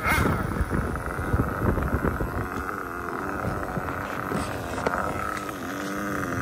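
Losi nitro RC buggy's small glow-fuel engine running, its pitch rising and falling with the throttle, then dropping to lower, wavering revs as the buggy rolls up close near the end. The engine is still on its break-in tune, run rich and not yet leaned out.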